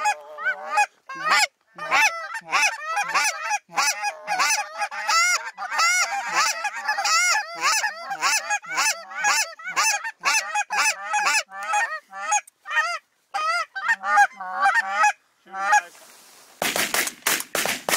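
A flock of geese calling, many short honks overlapping one another. Near the end come a few loud shotgun blasts in quick succession.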